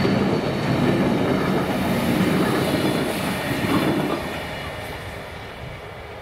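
Container freight train's wagons rumbling and clattering over the track. The last wagons pass about four seconds in, and the sound then fades away.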